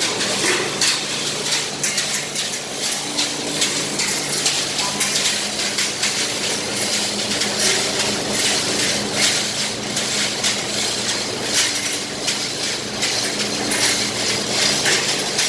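Metal clicking and clanking, several irregular clicks a second, from hoisting a heavy steel blower housing on a chain hoist amid steel scaffolding. A steady low machinery hum runs underneath.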